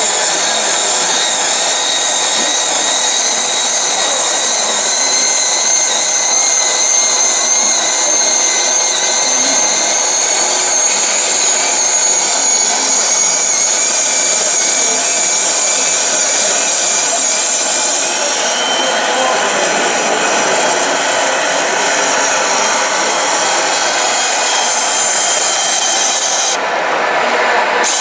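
Small electric hydraulic pump of a 1/14-scale RC MAN tipper truck whining steadily as it drives the ram that raises the tipper body to dump its load of soil.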